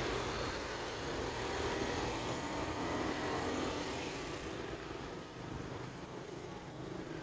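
Road traffic noise, steady at first and fading away over the second half.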